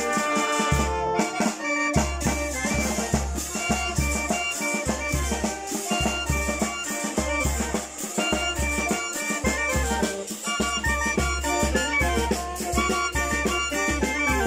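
Youth street band of trumpets, saxophones and trombone playing a lively tune, the horns holding melody notes over a steady low beat and percussion with cymbal hits.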